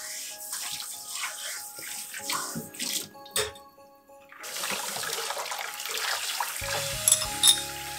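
Tap water running into a stainless steel kitchen sink during dishwashing, with clinks of ceramic and metal utensils set into a wire drying rack. The water stops for about a second midway, and two sharp clinks near the end are the loudest sounds. Soft background music plays under it.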